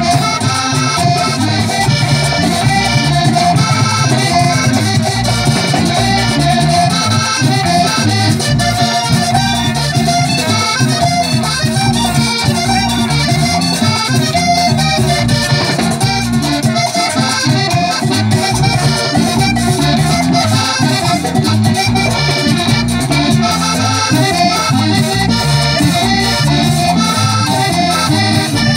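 Live band playing an accordion-led instrumental passage through stage speakers, with percussion keeping a steady beat.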